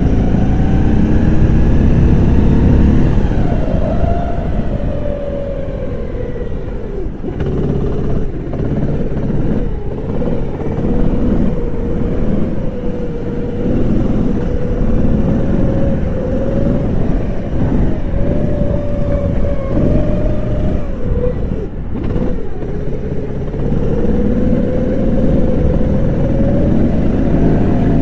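Kart engine running hard through a lap, its pitch rising on the straights and falling as it slows for corners, with two brief drops in revs, about seven seconds in and again a little past twenty seconds.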